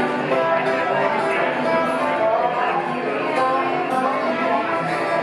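Acoustic bluegrass band playing live: a bowed fiddle carrying the melody over banjo and strummed acoustic guitar.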